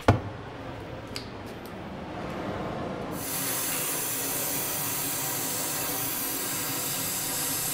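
Cutting torch flame hissing steadily against a steam locomotive boiler's smoke tube, much louder and brighter from about three seconds in. The torch is heating the cut end of the tube so that it folds in on itself and is small enough to come out through the boiler's drain hole.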